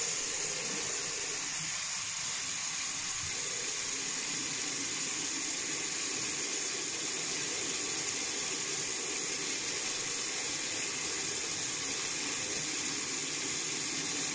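Mixer tap running hot water in a steady stream into the sink basin.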